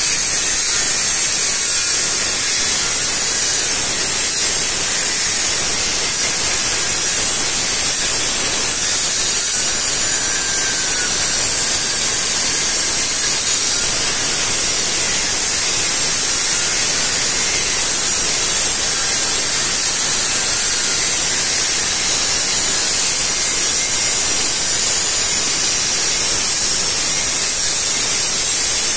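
Handheld electric angle grinders grinding and shaping Narmada river stone, a steady, unbroken high-pitched hiss of the discs on the rock.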